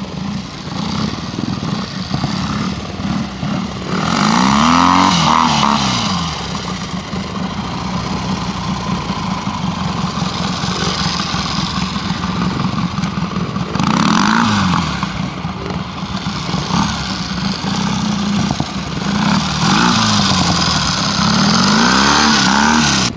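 Pre-unit Triumph twin trials motorcycle, its four-stroke parallel-twin engine running at a low, steady pull, with the throttle opened so the note rises and falls about four seconds in, again midway, and in several swells near the end.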